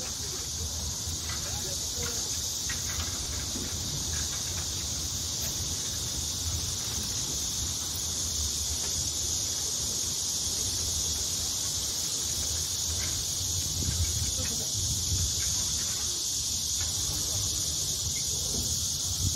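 Steady, high-pitched buzzing of a summer insect chorus, unchanging throughout, over a low rumble.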